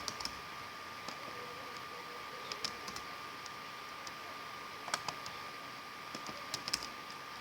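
Computer keyboard and mouse clicks: a few short clusters of key taps with pauses between them. A faint steady high-pitched hum runs underneath.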